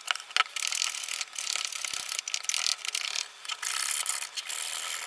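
A small hand file scraping and rasping along the edge of a cured carbon-fibre part in its mould, in quick, irregular scratchy strokes.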